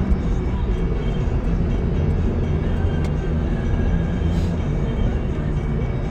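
Steady low rumble of a moving road vehicle: engine hum and road noise.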